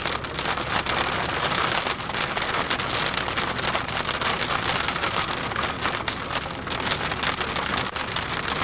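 Heavy rain striking a moving vehicle's windscreen and body: a dense, steady, crackling hiss of drops, with road noise underneath.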